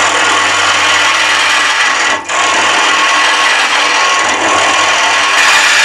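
A 6 mm carbide cutter in a hollowing arm cuts inside a spinning wooden hollow form on a lathe, a steady loud scraping hiss as shavings come off. It eases off briefly about two seconds in.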